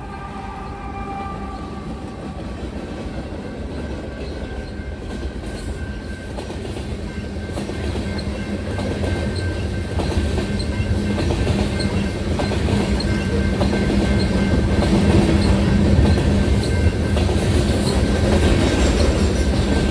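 A train horn tails off at the start. Then a Union Pacific freight train led by GE AC4400-family diesel locomotives approaches and grows steadily louder, its engines rumbling and wheels running on the rails. Under it a railroad crossing bell dings steadily.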